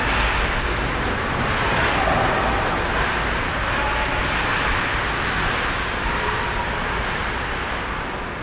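Steady background noise of an indoor ice hockey rink during a game, a constant rushing hiss with no distinct hits or calls, easing slightly near the end.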